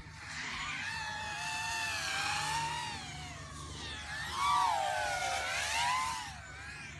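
FPV racing quadcopters' motors whining, the pitch sweeping up and down as they throttle through the course, with more than one quad heard at once. The whine gets loudest as a quad passes close about four and a half seconds in and again near six seconds.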